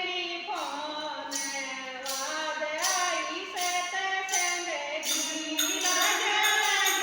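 A Hindi satsang bhajan sung by voices, with jingling hand percussion striking a steady beat from about half a second in.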